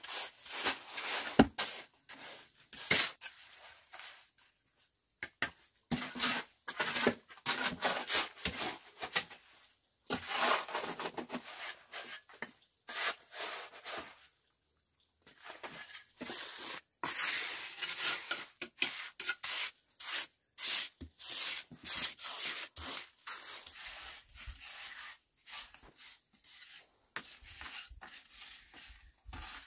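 Trowels scraping through wet cement mortar as it is packed and smoothed on a brick stove: a string of short, irregular scrapes with a brief pause about halfway through.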